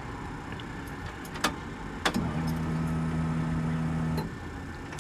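Clicks as the ignition is switched on, then a relay clicks about two seconds in and the Subaru's electric fuel pump hums steadily for about two seconds while priming, stopping abruptly.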